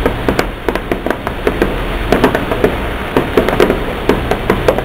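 Fireworks going off in quick succession in the distance: an irregular run of sharp pops and bangs, several a second, over a steady hiss.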